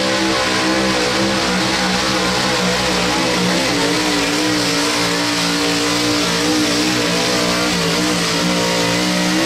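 Square-body Chevrolet 4x4 pickup engine held at high revs under heavy load while the truck drags a weight sled down the pull track. The engine note stays steady with slight wavers.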